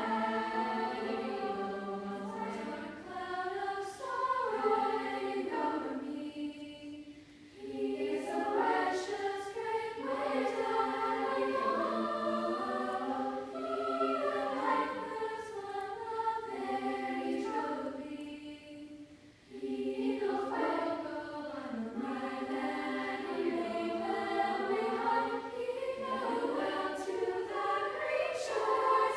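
Girls' vocal ensemble singing in parts, a choir of young female voices in harmony, with two brief breaths between phrases, about seven and nineteen seconds in.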